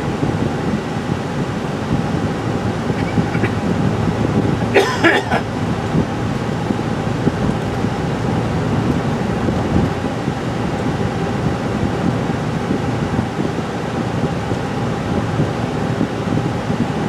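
Steady road and engine noise inside a moving car's cabin, with a faint steady hum. A brief, sharp noise stands out about five seconds in.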